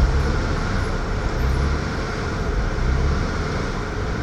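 1999 Acura TL's 3.2-liter V6 idling roughly, its low hum swelling and fading repeatedly as the idle bounces between about 1,200 and 1,500 rpm with the AC on. This is a fluctuating idle that the owner puts down to a bad idle air control valve.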